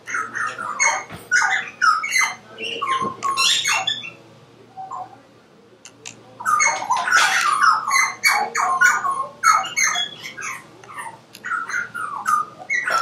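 Birds squawking and chirping in rapid, overlapping calls. The calls break off for about two seconds near a third of the way in, then start up again.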